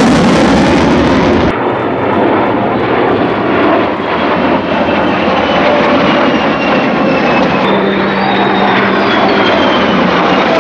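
Military jets, an F-22 Raptor and an A-10 flying in formation, passing overhead: a steady rush of jet engine noise with a faint whine falling in pitch as they go by. A louder, harsher jet roar cuts off abruptly about a second and a half in.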